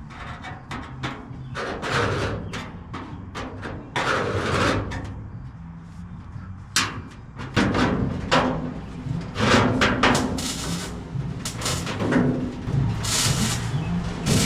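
Hand shears cutting through the old steel body panel of a 1928 Ford Model A: a run of irregular sharp snips and metallic crunches, some much louder than others.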